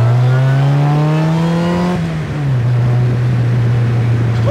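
Supercharged Chevrolet Cobalt SS 2.0-litre four-cylinder engine in a DF Goblin kit car, heard from the open cockpit. The engine pulls with a rising supercharger whine, then about two seconds in the pitch drops and holds steady.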